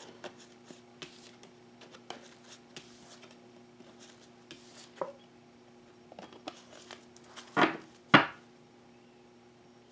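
A deck of tarot cards being handled: soft clicks and rustles as cards are picked up and slid into the deck, then two sharp knocks about half a second apart near the end as the deck is squared. A faint steady hum lies underneath.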